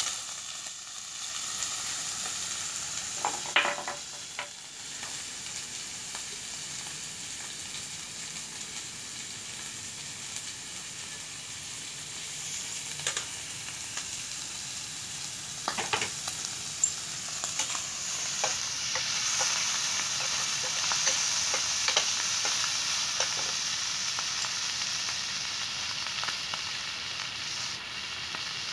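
Chicken offal sizzling in oil in a stainless steel pan, with a metal ladle scraping and clinking against the pan now and then as it is stir-fried. The sizzle grows louder a little past the middle.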